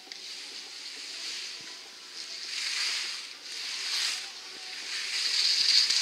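Skis scraping and hissing over snow as a skier turns through small moguls, the hiss swelling with each turn and loudest near the end as the skier comes close.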